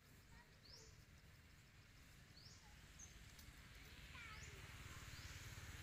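Faint outdoor ambience: a bird repeats a short, high call about every one and a half seconds over a low rumble. A hiss swells near the end.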